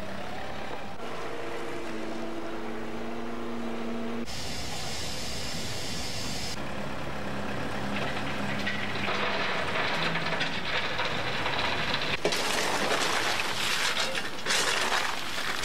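Diesel engine of a Case backhoe loader running while its bucket loads coal into a steam locomotive's tender. A harsher hissing, scraping noise comes in about three quarters of the way through, as coal is shovelled in the tender.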